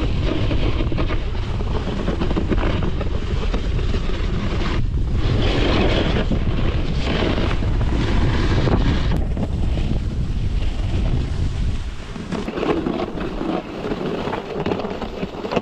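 Wind buffeting the microphone during a snowboard run, with the board scraping and hissing over the snow. The low wind rumble eases about twelve seconds in.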